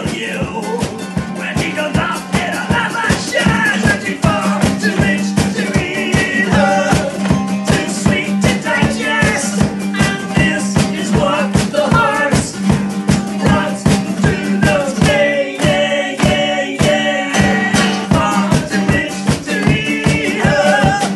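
Live acoustic-band music: an acoustic guitar and a bass guitar strummed to a fast, steady beat, with a man singing loudly over them.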